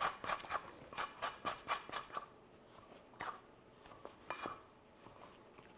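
Plastic bowl scraper scraping and cutting through stiff, dry dough against a stainless steel bowl: a quick run of strokes, several a second, for about two seconds, then a few softer scrapes.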